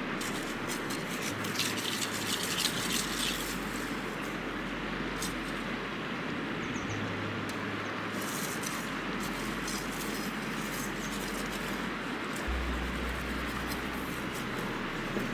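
Steady rush of river water, with splashing and light clattering as a cooking pan is rinsed by hand at the water's edge; the splashing comes in two spells, from about half a second to three seconds in and again around eight seconds in.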